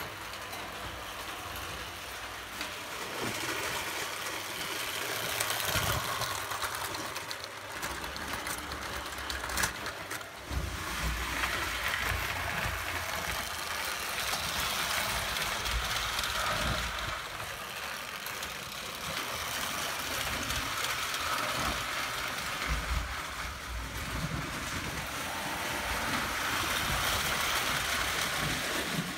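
Prewar Lionel O gauge toy train, a steam locomotive pulling small tinplate passenger cars, running on three-rail tinplate track: a steady rumble and clatter of wheels and electric motor that swells and eases as the train moves along the layout.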